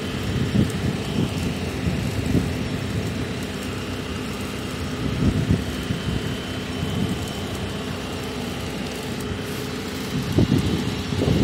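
Telehandler engine running steadily while it holds a load on its boom, with wind buffeting the microphone in low rumbling gusts.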